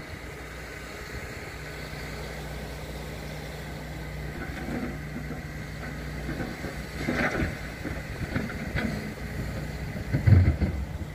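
Engine idling with a steady low hum that fades out about six seconds in; scattered knocks follow, with a loud thump near the end.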